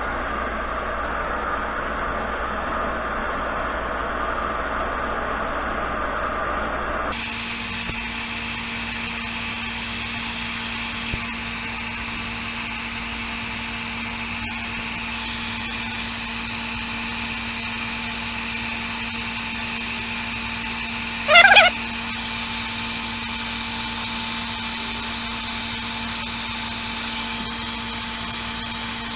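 Heat gun running steadily as it heats a steel coupling nut so the nut can be pressed into a plastic shop-vac wheel. The sound shifts sharply about seven seconds in, and a brief loud squeal comes about two-thirds of the way through.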